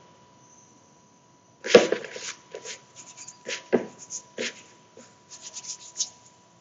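Fingers rubbing butter into flour in a mixing bowl: irregular short scratchy rustles and soft knocks of hands working the crumbly mixture against the bowl, starting about a second and a half in.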